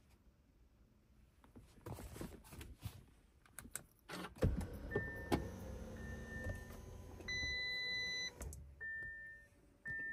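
Inside a 2021 Lamborghini Urus: a few clicks, then a thump and a whirring electrical hum as the car's systems power up, cutting off suddenly after about four seconds. Over it are short electronic beeps and one longer multi-tone chime from the car, with two more beeps near the end.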